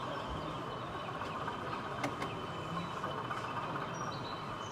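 Steady background din of a busy exhibition hall, with an OO gauge model train rolling past on the layout. Faint short high chirps come and go, and there is a single light click about two seconds in.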